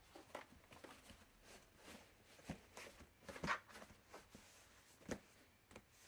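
A laundry basket being handled: faint, scattered rustles and light knocks. The loudest is a rustle a little past halfway, with a sharp knock near the end.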